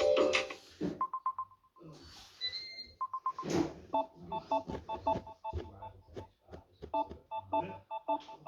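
Samsung Galaxy A71 ringtones playing: one tune cuts off about a second in, then a few clicks and short tones. From about four seconds a new ringtone of quick, repeated short beeping notes begins.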